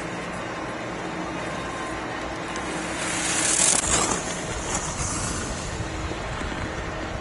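Ski edges scraping and hissing over hard-packed snow as a giant slalom skier carves past close by, rising to a peak about three and a half seconds in and fading, over a steady low rumble with a faint hum.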